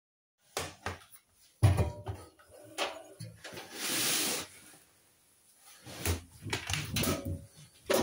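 Laundry being loaded into a Hoover front-loading washing machine: scattered knocks and bumps against the drum and door, the loudest about a second and a half in, with a longer rustle about four seconds in.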